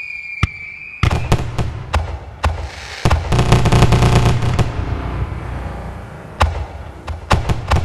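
Fireworks display: a whistling firework's falling whistle fades out in the first second, then a sharp bang. A volley of bangs follows, with a dense burst of rapid crackling in the middle and scattered bangs near the end.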